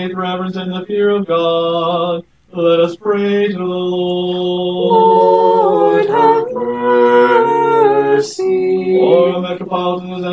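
A cappella Orthodox liturgical chant: slow, unaccompanied singing with long held notes and a brief pause about two seconds in.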